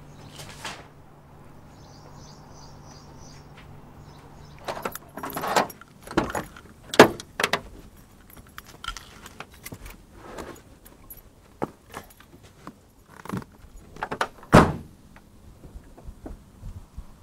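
A man getting into a car: a series of separate knocks and clicks as he climbs into the driver's seat, with the car door shutting in the loudest thud near the end, then keys jangling at the ignition.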